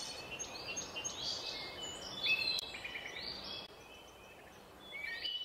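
Songbirds chirping, many short high calls one after another over a steady outdoor hiss. The chirping thins out for about a second near the end, then picks up again.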